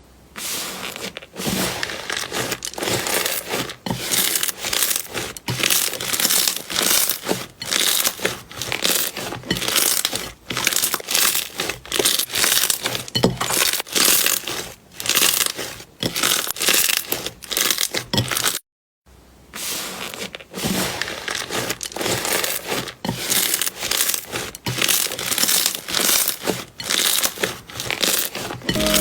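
Slime being squeezed and pressed by hand, giving quick, uneven crackling and crinkling pops in rapid succession. The sound breaks off briefly about two-thirds of the way through, then resumes.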